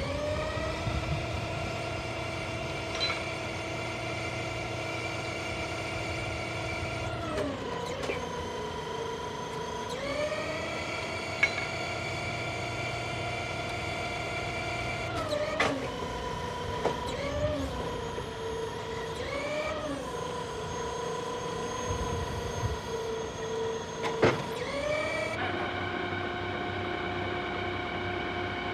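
Hydraulic drive of a LAXO demountable timber crane whining steadily. Its pitch steps up as the hydraulics are worked and drops back between moves, three times over, with a few sharp metallic clanks in between.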